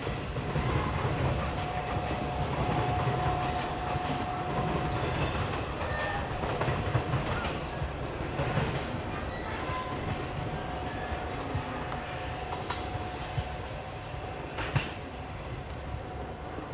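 Track-maintenance work train, a string of yellow maintenance machines and rail wagons, rolling along the rails and moving away. Its wheels clack over the rail joints under a steady rumble that slowly fades, with a faint thin steady tone and a few sharp clicks near the end.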